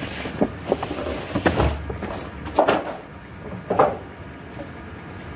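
A box and its packaging being opened and handled by hand: several sharp knocks and clicks with rustling between them.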